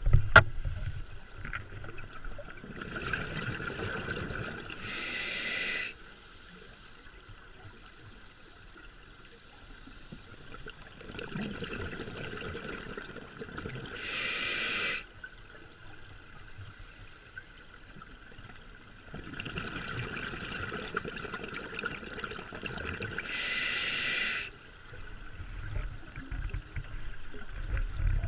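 A diver breathing through a scuba regulator underwater: three slow breaths about nine seconds apart, each a few seconds of bubbling and hiss ending in a short, louder hiss.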